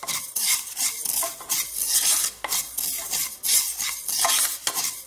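Spatula stirring and scraping sesame seeds being dry-roasted in a nonstick pan: quick repeated scrapes, about two a second, with the seeds rustling against the pan.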